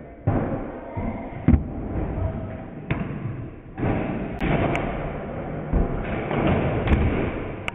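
Stunt scooter rolling on a concrete skatepark floor, with several hard thuds of the scooter and rider hitting the ground. The sound changes abruptly twice where one clip cuts to the next.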